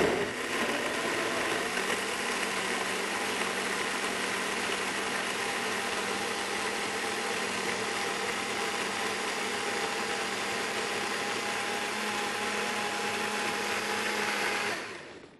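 A Champ variable-speed countertop blender running steadily on high, pureeing chunks of mango, butternut squash, banana and dates in orange juice into a thick, creamy soup. It winds down and stops about a second before the end.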